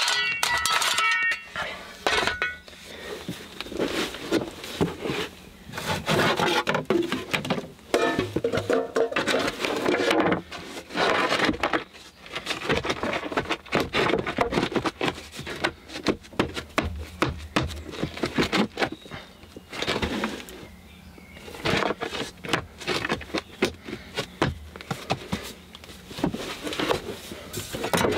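A steel shovel scraping and chopping into stony earth, with a brief metallic ring in the first couple of seconds. Then wooden floor boards are set down, shuffled and knocked into place on the ground, giving a run of irregular knocks and scrapes.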